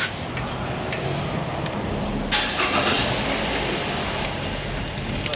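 A motor vehicle engine running steadily, joined about two seconds in by a louder rushing noise.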